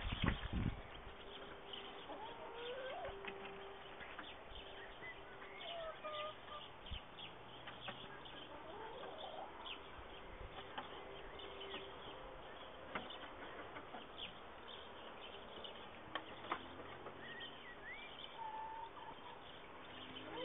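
A hen's soft clucks and scattered faint bird chirps, with occasional light clicks. A couple of low thumps come right at the start.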